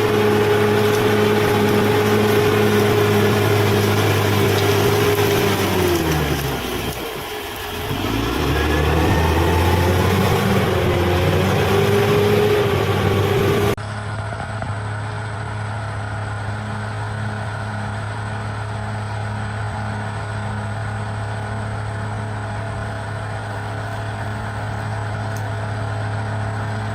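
Bulldozer's diesel engine running steadily. About six seconds in its revs dip, then climb back. About fourteen seconds in the sound cuts abruptly to a quieter, steady engine hum.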